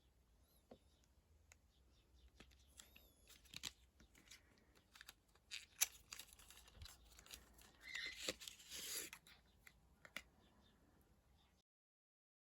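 Faint handling of a mascara's cosmetic packaging: scattered small clicks and rustles, with a louder crinkling tear about eight seconds in. The sound cuts off abruptly near the end.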